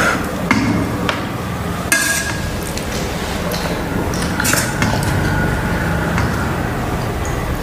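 Steel serving spoon clinking and scraping against a stainless-steel bowl of curry: a few separate clinks, one about two seconds in and another about four and a half seconds in, each with a short metallic ring.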